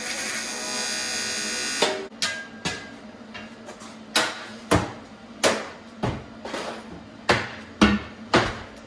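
Background music: a held chord for about two seconds, then a beat of sharp drum hits roughly twice a second over a steady low note.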